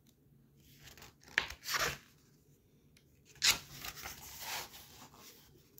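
Paper pages of a picture book being turned, rustling and sliding in two bursts about two seconds apart.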